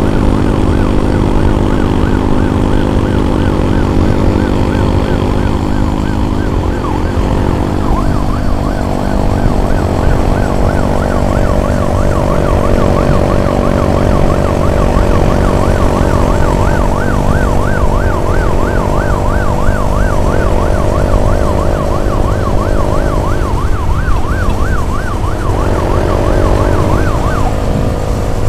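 Emergency siren in a fast yelp, warbling up and down several times a second and cutting off shortly before the end. Under it runs a steady engine drone with a heavy low rumble.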